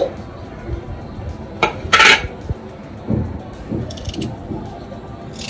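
Kitchen things being handled: a sharp clatter about two seconds in, then lighter clicks and scrapes as a knife cuts pieces of ginger into a plastic mixer-grinder jar.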